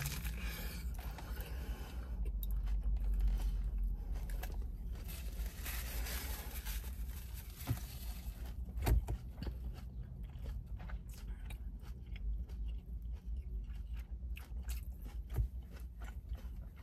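A person chewing and biting a lettuce-wrapped bacon burger close to the microphone: crunching lettuce and wet mouth clicks, with a louder crunch about nine seconds in.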